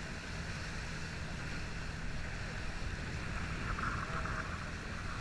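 Motorized bangka outrigger boat under way: its engine runs with a steady low drone under a constant rush of water spray and wind against the microphone.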